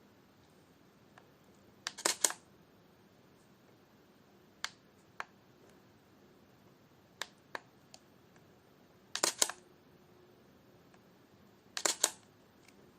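Camera shutter clicks: three louder bursts of several quick clicks, about two, nine and twelve seconds in, with a few lighter single clicks between them.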